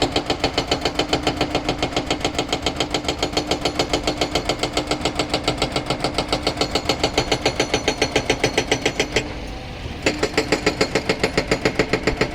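An engine running steadily with a fast, even beat of about seven pulses a second. The sound drops out for under a second near the end, then resumes.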